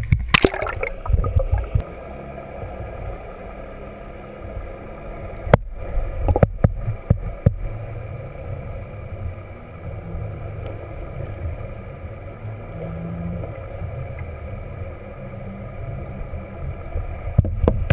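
Muffled underwater sound picked up by a camera held below the surface: a steady low rumble with a few steady tones above it, the boat's motor heard through the water. There is splashing in the first couple of seconds as the camera goes in, and a few sharp knocks around the middle.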